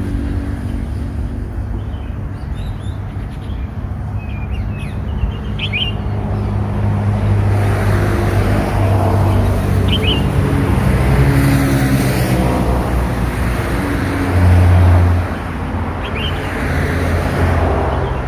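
Young red-whiskered bulbul giving a few short, high chirps spaced several seconds apart, over a loud, steady low rumble of road traffic with vehicles passing.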